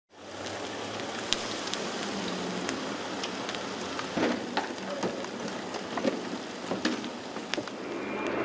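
A car on fire: a steady hiss of flames with scattered sharp cracks and pops. Near the end a louder steady street noise with a faint high tone takes over.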